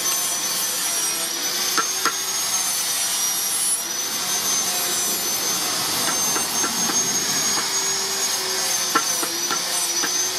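Angle grinder running steadily with a high, slightly wavering whine, with a few light knocks.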